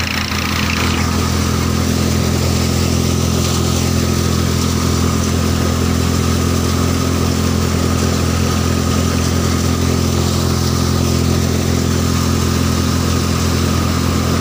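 Massey Ferguson 1035 tractor's three-cylinder diesel engine running steadily under load, driving a belt-driven thresher that is threshing mustard: a steady engine drone mixed with the whirring of the threshing drum and belts.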